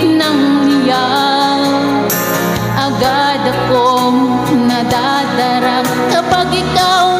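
Background music: the instrumental backing track of a pop ballad playing steadily, with a wavering melody line over held chords.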